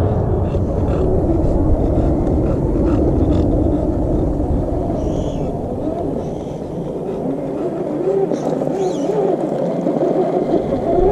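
Electric motor and geared drivetrain of an RC scale rock crawler whining as it climbs rock, the pitch sliding up and down continually with the throttle. A low rumble runs under it for the first half and then drops away.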